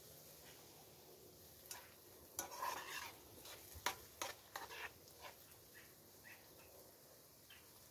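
A spoon stirring chopped green herbs in a frying pan over a wood fire: a run of light scrapes and clicks against the pan for a few seconds, over a faint sizzle of frying.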